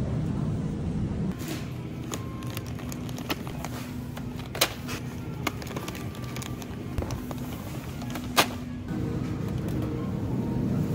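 Steady low hum of a grocery store's background, with scattered sharp clicks and knocks from a plastic shopping basket and packaged goods being handled. Two of the clicks are louder, one about halfway through and one later on.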